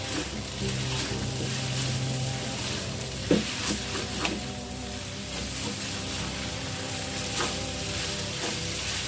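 Food sizzling in a hot pan as it is stir-fried, with a few sharp clinks of the cooking utensil against the pan, the loudest about three seconds in.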